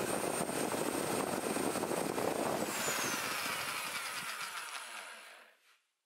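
Cordless drill boring a pilot hole through wooden corner moulding so the screws won't split it. The motor runs with a steady high whine, then winds down with a falling whine from about halfway through until it stops near the end.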